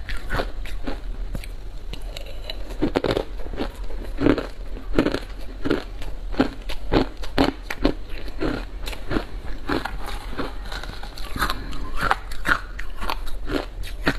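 Close-miked chewing of matcha shaved ice: a steady run of crisp crunches, about two or three a second, as mouthfuls of ice are bitten and ground.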